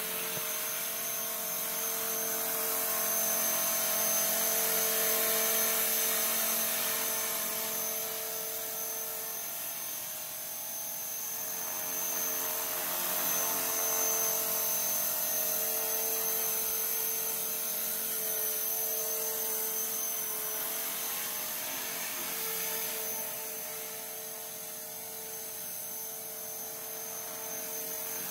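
Blade 450 electric RC helicopter in flight: the brushless motor and gears give a steady high whine over the whir of the main rotor. It swells and fades several times as the helicopter comes closer and moves away.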